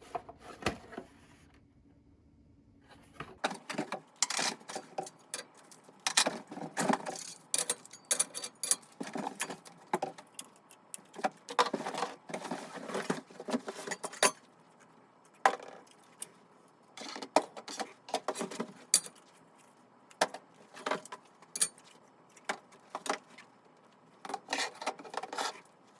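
Small hard plastic alarm and security parts clicking, clattering and rattling as they are handled and opened, in quick irregular knocks that start about three seconds in.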